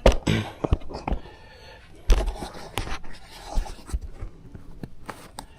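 Handling noise from a camera and its mount being adjusted: scattered clicks, knocks and rustling, with a dull thump about two seconds in.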